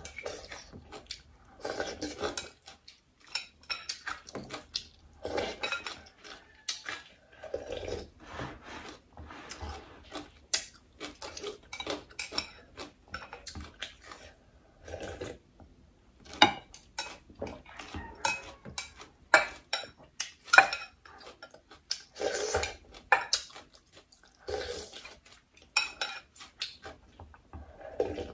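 Close-miked eating of noodle soup: chopsticks clicking against a glass bowl among irregular short bursts of slurping and mouth sounds, with sips of broth drunk straight from the bowl.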